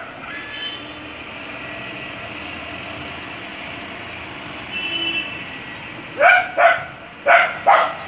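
A dog barking, two quick double barks near the end, over steady outdoor background noise.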